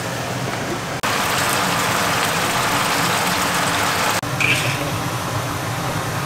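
Cola chicken wings simmering and sizzling in a frying pan as the sauce reduces. The sizzling jumps louder about a second in and drops back suddenly about four seconds in. Just after the drop comes a brief clink of a serving spoon against the dish.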